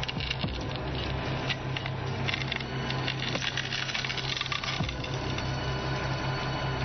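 Road roller's engine running with a low, steady hum while broken glass crunches and crackles under its weight. The crackling comes thickest near the start and again through the middle.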